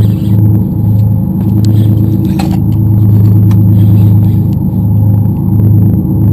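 A party fishing boat's engine running with a steady low drone, with one sharp click about two and a half seconds in.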